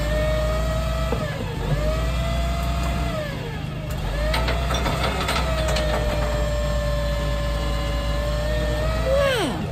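Side-loading garbage truck working its automated bin arm: the diesel engine is held at raised revs with a steady whine over its low rumble. The whine dips twice and drops away sharply near the end. A few knocks come in the middle as the arm grips and lifts a wheelie bin.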